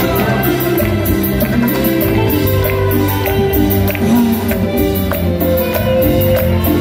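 Live band music played loud through a PA, with sustained notes and a steady, even percussion beat.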